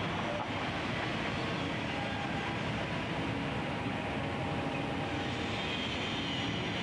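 Steady outdoor background noise with a low rumble and no distinct events, the kind of ambient din heard around an industrial construction site.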